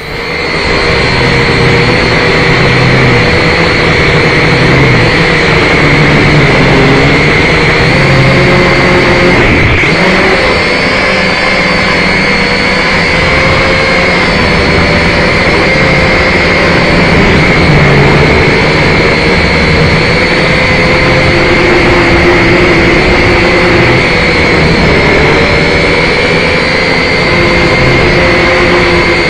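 A cheap camera drone's electric motors and propellers buzzing loudly close to the microphone. They spin up for take-off at the start, then give a steady whine whose pitch wavers up and down as the drone flies.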